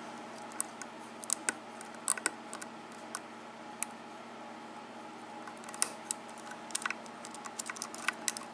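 Small, irregular metallic clicks and taps of a lock pick single-pin picking the pins of a Schlage KIK five-pin lock cylinder with a sidebar, coming in scattered clusters.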